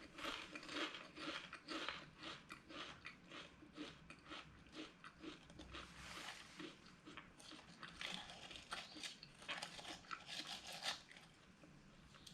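Close crunching and chewing of a crisp potato snack in the mouth: a quick, irregular run of crackly crunches that thins out near the end.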